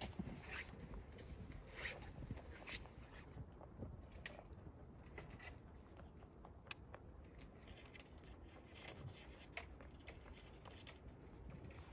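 Faint, irregular small clicks and rustles of rabbits shifting about on a wire-mesh hutch floor.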